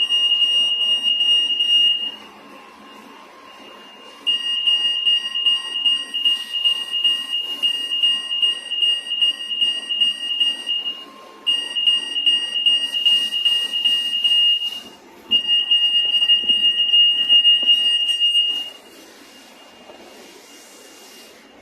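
Anti-theft EAS gate alarm sounding: a high-pitched electronic beep pulsing rapidly, going off in four stretches of several seconds each with short pauses between. The alarm is the sign that an active security tag has been detected between the gate's antennas.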